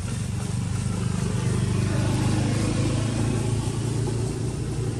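A motor vehicle's engine running with a steady low hum, getting louder about two seconds in and easing off toward the end.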